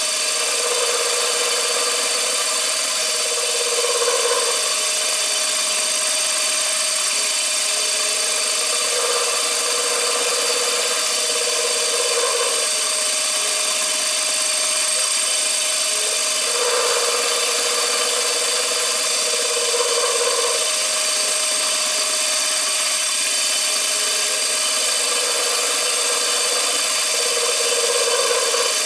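CNC machine running: a steady whine with several high tones, and a lower hum that comes and goes in runs of about a second, around ten times.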